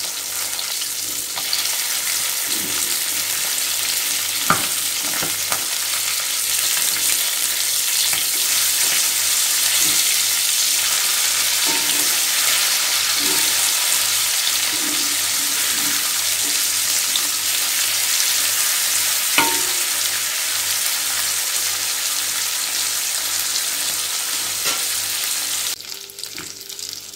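Small marinated fish shallow-frying in oil on an iron tawa: a steady sizzle, with a few sharp clicks of a metal slotted spatula against the pan as the fish are turned. The sizzle drops away suddenly near the end.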